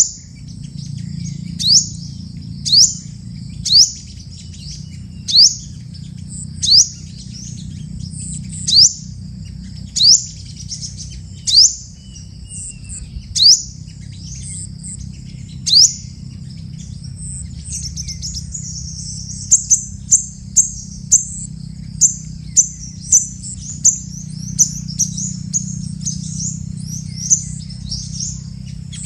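Sunbird calling: sharp, high, downward-slurred notes every second or two, then from about two-thirds of the way through a quicker run of short high chips, over a low steady rumble.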